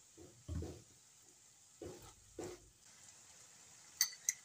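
Silicone spatula stirring chicken and tomato in a nonstick wok: three soft, dull strokes through the food in the first half. Near the end come two sharp clicks a third of a second apart.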